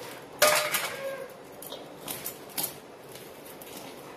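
A sharp metallic clink about half a second in, from the small steel bowl knocking against the large steel mixing bowl, with a brief ring. A few faint taps and clicks follow as flour is worked by hand in the bowl.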